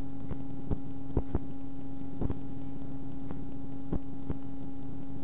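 Steady low electrical hum in the recording, with scattered faint clicks and no speech.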